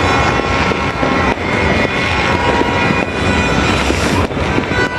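Many fireworks going off at once: bangs and crackle run together into a loud, steady rumble, with sharper single reports standing out now and then.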